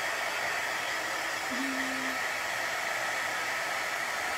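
Handheld hair dryer running steadily, a continuous even rush of blown air drying wet chalk paste.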